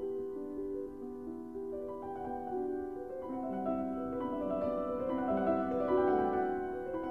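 Background piano music, slow held notes that grow fuller and a little louder from about three seconds in.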